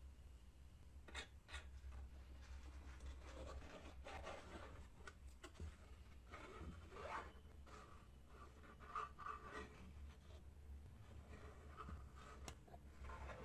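Faint rustling and rubbing as felt and cardboard pieces are handled and glued by hand, with a few light taps, over a low steady hum.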